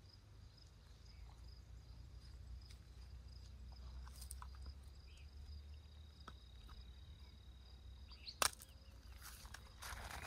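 Faint rural outdoor ambience: a steady high, thin insect trill over a low rumble, with scattered small clicks. There is a single sharp click a little past eight seconds in.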